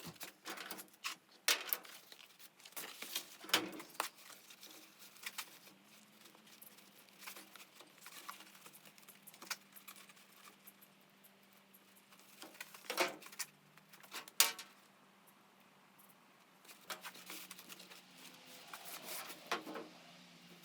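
Hands working with small parts and tape at close range: scattered clicks, light taps and crinkling rustles, a few sharper clicks about two-thirds of the way through, over a faint steady low hum.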